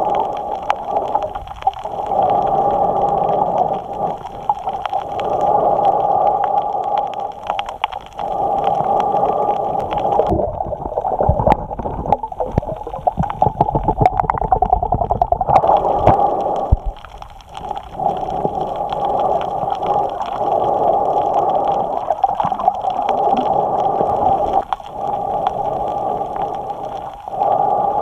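A snorkeler breathing in and out through a snorkel, picked up very close by a camera mounted on the snorkel: loud rushing breaths with short pauses every two to three seconds. In the middle the breathing gives way for a few seconds to a lower gurgling with knocks.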